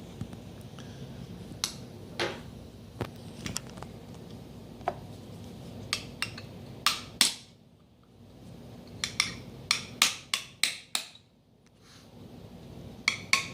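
Irregular sharp metallic clicks and taps as the shower screen is worked back into the group of a Caravel lever espresso machine, with a quick run of clicks about nine to eleven seconds in.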